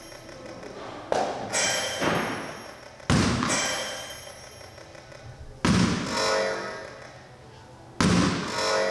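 A small ball thrown against a light-up target wall, hitting it with sharp bangs that ring and echo for over a second each. There are five bangs, the first two about half a second apart, then one every two to three seconds.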